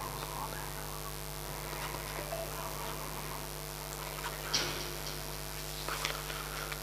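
Steady electrical hum from the public-address sound system, with a few short faint noises about four and a half and six seconds in.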